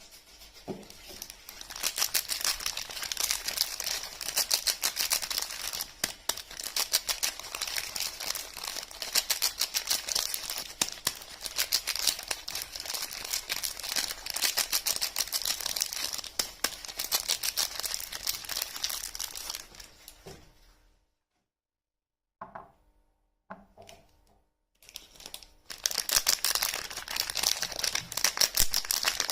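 Paper and plastic soap-bar wrappers being crinkled and torn open, a dense crackling that runs for about twenty seconds. It pauses briefly with a few light knocks, then the crinkling starts again near the end.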